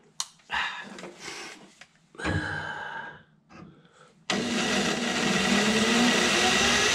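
Electric drill with an eighth-inch bit drilling out a steel body rivet. The motor starts about four seconds in and runs steadily at full speed, with a faintly rising tone as the bit cuts. Before that there are a few short clicks and rustles and a brief burst of noise as the bit is set on the rivet.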